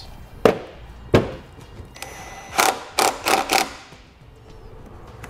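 Hands pressing a plastic car rocker panel firmly onto its retaining clips. Two sharp knocks come about a second apart, then a quick run of four knocks and clicks near the middle as the panel is pushed into place.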